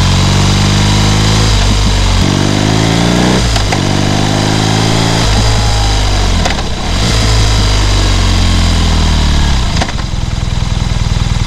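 BMW R nineT Scrambler's boxer twin engine under way: the pitch rises twice with a gear change in between, then falls slowly as the rider eases off. About ten seconds in it settles into a low, pulsing rumble.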